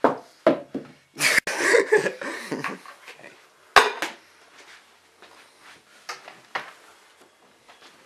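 A bowl being handled, knocking and clattering: several knocks and a clattering burst in the first two seconds, one sharp clack just before four seconds in, then only faint handling noises.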